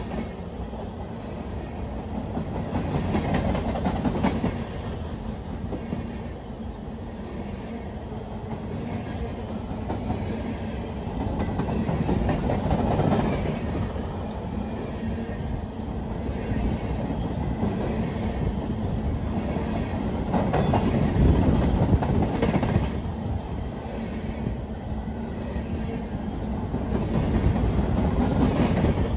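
Freight train of covered hopper cars rolling past close by: a steady rumble of steel wheels with clickety-clack over the rail joints, swelling every several seconds as the wheel sets go by.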